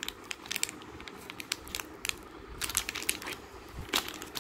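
Clear plastic wrapper of a stationery kit crinkling as it is handled, in scattered clusters of sharp crackles.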